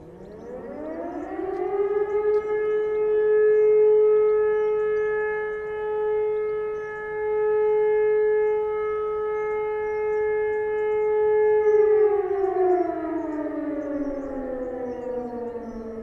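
German E57 motor sirens sounding one blast of the fire-alarm signal. The siren winds up over about two seconds to a steady wail, holds it for about ten seconds, then winds down in a long falling tone as the rotor slows.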